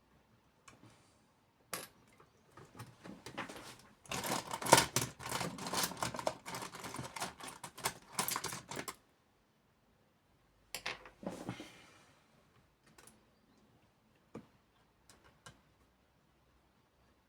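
Small metal tools and parts clicking and clattering on a work surface while a phone is taken apart. There are scattered single clicks, a dense run of rattling clicks from about four seconds in to about nine, and a shorter clatter near eleven seconds.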